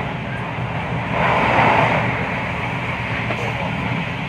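Class 323 electric multiple unit heard from inside the carriage, running at speed with a steady low rumble. A louder rush of noise swells for about a second near the start.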